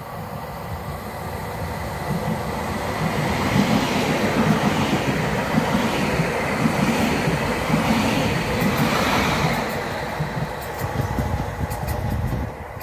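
Stadler FLIRT electric multiple unit passing close by at speed, its wheels clattering over the rail joints in an even rhythm. The noise builds to its loudest a few seconds in, eases off, and drops away abruptly near the end.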